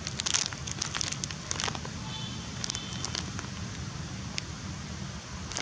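Outdoor town ambience: a steady low rumble with a burst of sharp crackling clicks in the first two seconds, a few more later, and a brief thin high tone about two seconds in.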